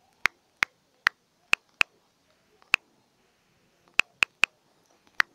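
Key-press clicks from typing on a phone's on-screen keyboard: about ten short, identical clicks at an uneven typing pace, several in quick runs of two or three.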